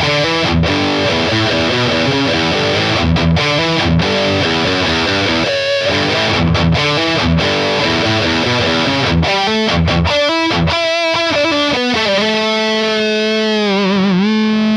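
Harley Benton SC-Custom Plus electric guitar with EMG pickups played through heavy distortion: a quick riff broken by short sharp stops, then a chord held from about twelve seconds in whose pitch wavers near the end.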